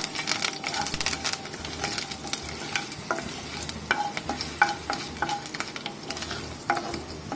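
Mustard seeds, chana dal, green chillies and curry leaves frying in hot ghee in a nonstick pan, sizzling while a wooden spatula stirs and scrapes through them, with scattered small clicks and pops.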